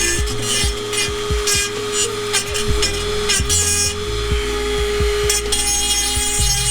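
Dremel 4000 rotary tool with a sanding pad grinding metal at the cracked end of an exhaust pipe, a steady high whine over a rasping grind. The grinding is there to stop the two cracked ends of the exhaust tapping together and rattling at certain RPM.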